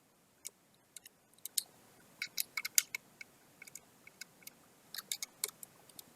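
Small, sharp metallic clicks and taps at irregular intervals, bunched about two seconds in and again about five seconds in, from a screwdriver and small screws working on a laptop's processor heatsink.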